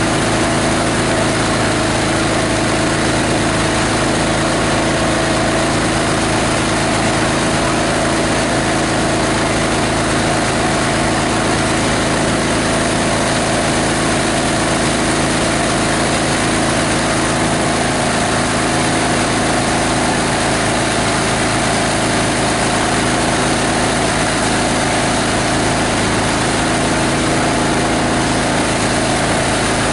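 The 18 HP diesel engine of a plastic-waste grinder running steadily at an even speed.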